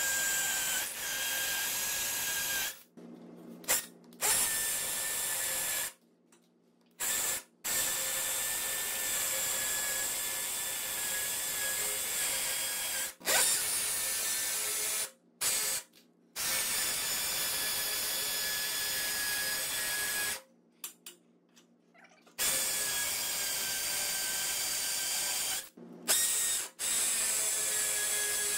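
20 V cordless drill boring pilot holes into a concrete-block wall: a steady motor whine under the grinding of the bit. It stops and starts again about five times, with a click at each stop and start.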